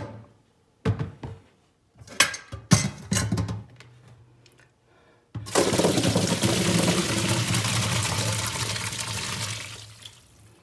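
A few knocks and clatters as a plastic bowl and a metal colander are handled in a stainless-steel sink, then olives and water are poured from the bowl into the colander: a steady rushing splash of water draining into the sink for about four seconds, fading out as the last olives tumble in.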